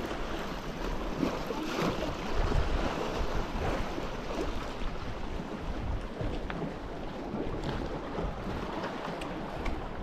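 Sea waves washing against a rocky shore, with wind buffeting the microphone.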